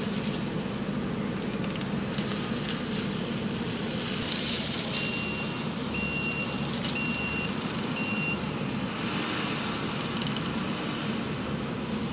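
Kubota SVL90 compact track loader's diesel engine running steadily under load, driving an SSECO forestry mulcher head into brush. In the middle, four short high beeps about a second apart from its backup alarm as it reverses.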